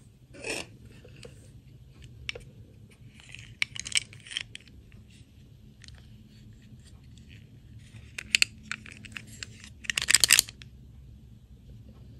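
Small plastic princess dolls and a clip-on plastic dress being handled and snapped together: scattered light clicks and taps, loudest in a quick run of clicking about ten seconds in.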